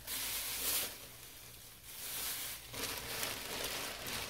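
Plastic trash bag and the things inside it rustling and crinkling as they are rummaged through by hand, in uneven bursts with a lull after about a second.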